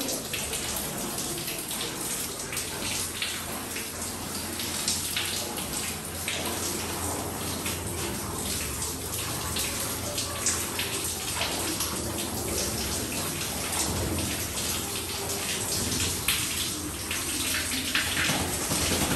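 Handheld shower head spraying water onto a wet dog's thick coat in a stainless-steel dog-wash tub: a steady hiss of running water with scattered small splashes.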